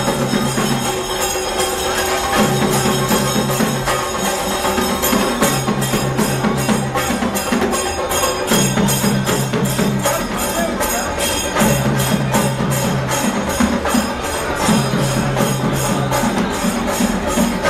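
Music with a steady percussive beat and a low phrase that repeats about every three seconds.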